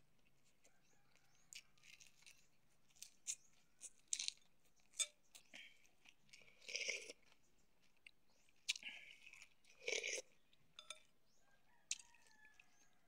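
Close-up mouth sounds of eating: quiet, scattered chewing and lip-smacking of rice and fried dried fish, with a few louder slurps of broth from a spoon.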